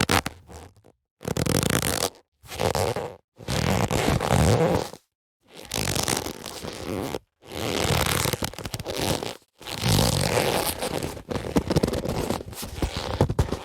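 Boxing gloves being handled, giving a rasping, creaking friction noise. It comes in about seven bursts a second or two long, with short silences between.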